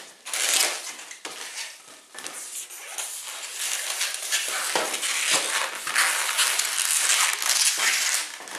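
Inflated red 260 latex modelling balloons being stretched, rubbed and twisted in the hands, giving an uneven rustling rub that comes and goes in surges.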